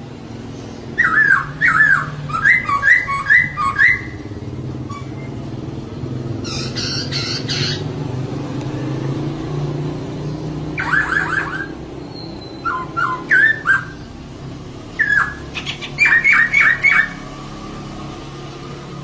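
Female laughingthrush (poksay) calling in several short bursts of quick repeated notes, with a harsh, rasping burst about seven seconds in. A steady low hum runs underneath.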